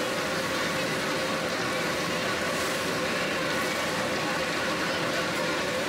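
Steady roaring hiss of the open fire under a large wok of greens cooking in liquid, with faint voices in the background.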